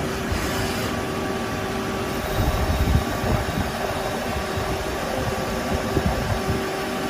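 Multi-tasking CNC lathe running while machining, a steady mechanical hum with several steady tones and uneven low-pitched pulses.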